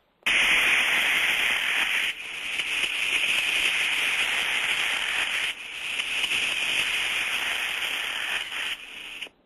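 Thermostatic steam trap discharging condensate, heard through an ultrasonic detector: a rushing hiss that starts suddenly, dips twice and cuts off near the end. The distinct on-off cycle of a working thermostatic trap, discharging for a few seconds and then closing.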